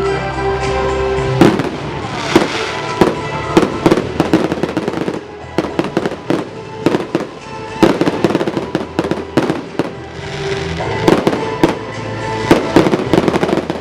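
Fireworks display: rapid, irregular bangs and crackles from about a second and a half in, over loud show music.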